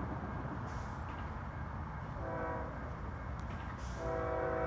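Horn of an approaching CSX freight locomotive, heard at a distance: a short blast about two seconds in, then a long blast starting near the end, sounding for the grade crossing. A low steady rumble lies underneath.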